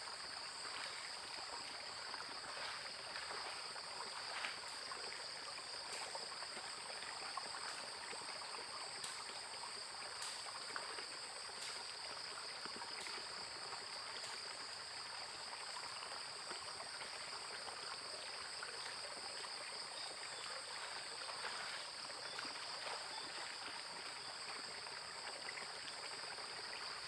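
Floodwater running steadily in a shallow channel, with a constant high-pitched whine over it and a few faint ticks.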